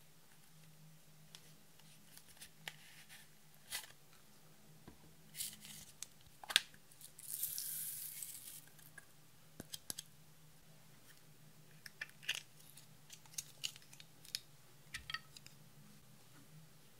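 Faint clicks and taps of small plastic containers being handled. About seven seconds in comes a short hiss of glitter and sequins pouring into a plastic tray, followed by more scattered light clicks as small beads drop in.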